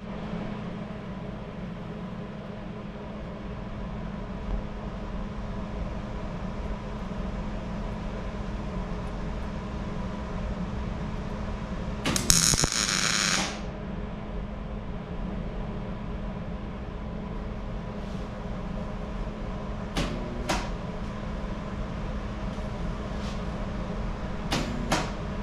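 Welding machine humming steadily while switched on for tack welding, with a hiss lasting about a second midway and a few light clicks near the end.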